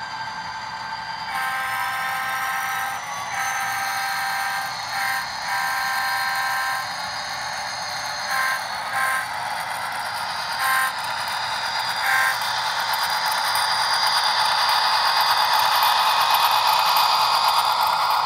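Sound decoder of a Bachmann HO-scale NS SD40-2 model diesel sounding its multi-chime air horn in several long blasts, then a few short toots, over the locomotive's steady running sound. The running sound grows louder near the end.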